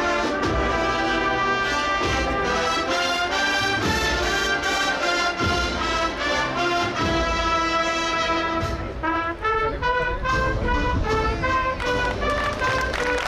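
Brass band playing a cheerful Holy Week processional march in the street, held brass notes stepping through a melody over drum beats.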